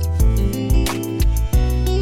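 Background music: guitar-led track with a steady beat and bass line.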